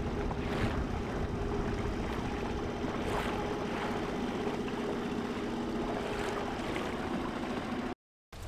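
A small boat's outboard motor running at a steady speed, with water and wind noise around it.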